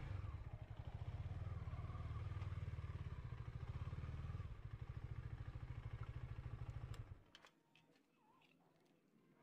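Vehicle engine running low and steady while being parked, then switched off about seven seconds in; a few light clicks follow in the quiet.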